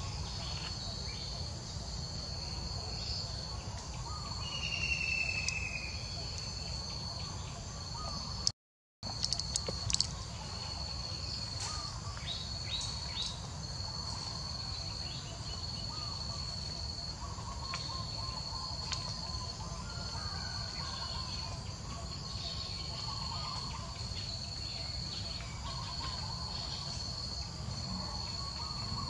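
Insects trilling in a steady, high-pitched chorus that pulses in even, regular segments, over a low background rumble. The sound drops out briefly about nine seconds in, and a few sharp clicks follow.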